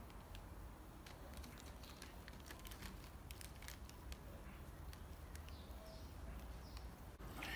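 Faint crinkling of a crisp packet and crunching of crisps, heard as scattered small clicks, with a few faint bird chirps around the middle. Near the end there is a short swish of pool water as the two sit down.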